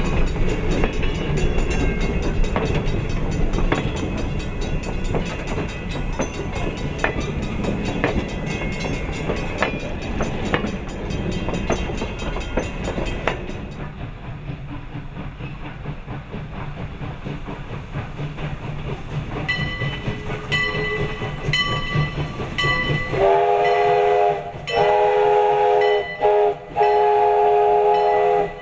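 A 0-6-0 steam train rolling along with rattling and clicking from the cars and track, then growing quieter. A regular high ringing sets in, and near the end the locomotive's chime whistle sounds the crossing signal: two long blasts, a short one and a long one.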